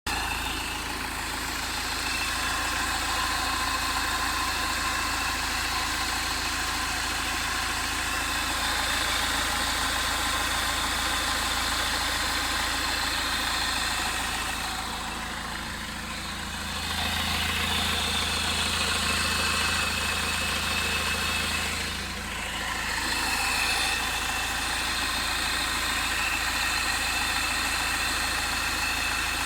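Peugeot 406 HDi diesel engine idling steadily with the odd noise that the owner cannot trace, still there after a new compressor, accessory idler pulley and belt, with the damper pulley checked. For a few seconds past the middle a deeper hum grows louder.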